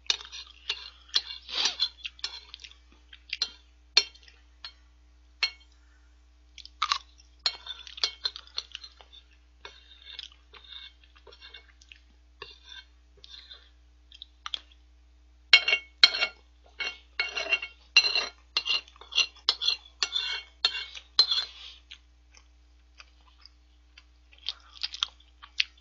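Metal spoon clinking and scraping against a ceramic plate while scooping up the last of the curry and rice, with close-miked chewing between strokes. The clatter comes in irregular clusters, busiest in a run of rapid clinks a little past the middle.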